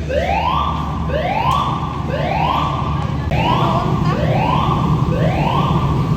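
Building fire alarm sounding the evacuation whoop tone: a rising sweep repeated about once a second, signalling occupants to evacuate. Steady low background noise runs underneath.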